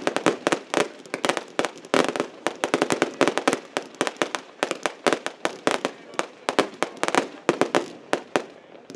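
Aerial fireworks bursting in quick succession: a dense run of sharp bangs and cracks, several a second, thinning a little near the end.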